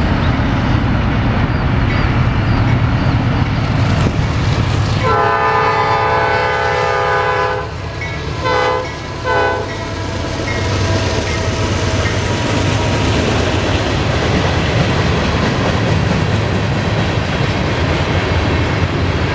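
Norfolk Southern diesel freight locomotive passing close by with its engine running, its air horn sounding one long blast about five seconds in and two short blasts just after. The freight cars then roll past on the rails.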